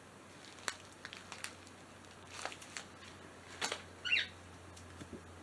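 Scattered light clicks and taps of packaging being handled, over a faint low hum, with one short falling chirp from a pet bird about four seconds in.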